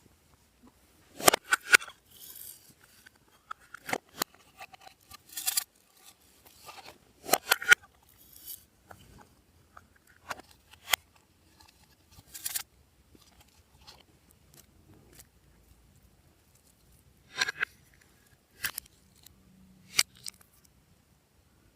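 Glossy slime being squeezed and stretched by hand, giving sticky clicks and crackles in scattered bursts with short quiet gaps between them.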